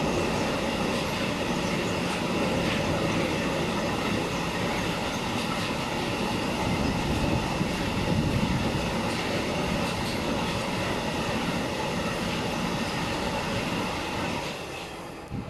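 Freight train of loaded double-deck car-carrier wagons rolling past at steady speed, with a continuous rumble and clatter of wheels on rail. The sound fades away near the end as the last wagon goes by.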